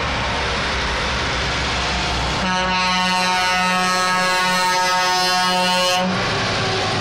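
Truck air horn sounded in one long steady blast of about three and a half seconds, starting a couple of seconds in, over the engine and tyre noise of heavy trucks driving past in convoy.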